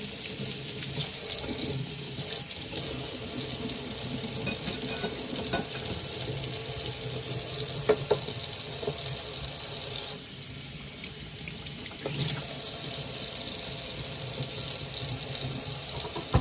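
Kitchen tap running into a sink while a bowl is washed under it: a steady rush of water, with a couple of short knocks about halfway and the flow quieter for a couple of seconds after that.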